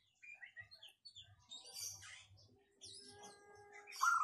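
Bird calls: short high chirps scattered throughout, and about four seconds in a loud run of quick pulsed cooing notes from a caged zebra dove (perkutut).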